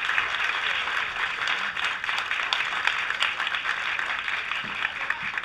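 A group of people clapping: continuous applause that eases off slightly toward the end.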